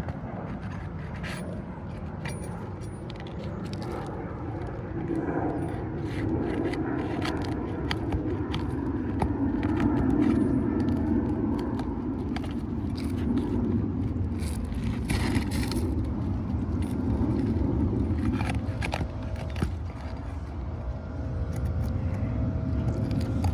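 Pry bar scraping and clicking against asphalt roof shingles as a shingle and its nail are worked loose, over a steady low rumble.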